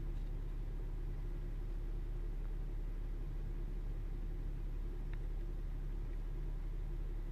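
Steady low rumble of a motor vehicle or road traffic, with a constant low hum and faint hiss; a faint tick about five seconds in.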